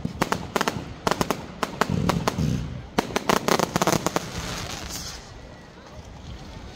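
Fireworks going off: rapid crackling bangs in two clusters, with a deep boom about two seconds in. The bangs die down to fainter crackling over the last couple of seconds.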